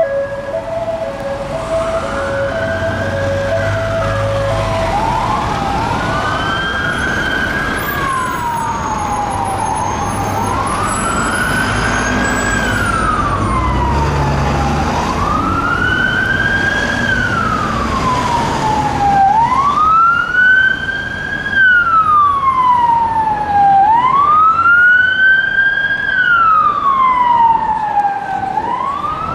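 Emergency-vehicle sirens passing in traffic. A slow wail rises and falls about every four seconds, with two sirens sounding out of step for a while in the middle. A two-note hi-lo tone alternates in the first few seconds. The wail grows louder in the second half, over a low rumble of traffic.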